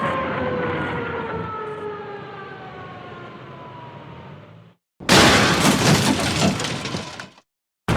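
A car driving away, its engine note falling in pitch and fading, then cut off. After a short gap a car crash: a sudden loud smash with breaking and shattering, lasting about two seconds.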